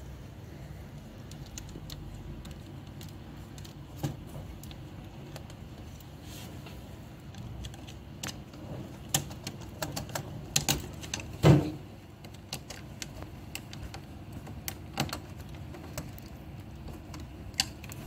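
Small clicks and taps of a screwdriver and wire being worked into the terminal of a plastic three-phase rotary cam switch as the L1 phase wire is fastened, with one sharper knock about two-thirds of the way through. A low steady hum sits underneath.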